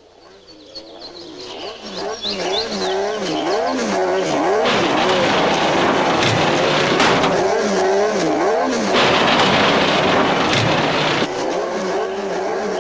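Race car engines revving in an animated soundtrack, fading in over the first two seconds, their pitch rising and falling over and over above a dense rushing noise.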